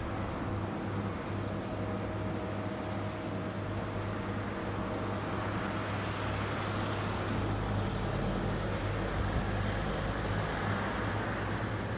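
Rice combine harvester's engine running steadily with a low hum, growing a little louder and deeper about halfway through.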